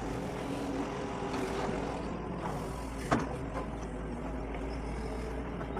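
Doosan DX140 excavator's diesel engine running steadily while it works, with one sharp knock about halfway through.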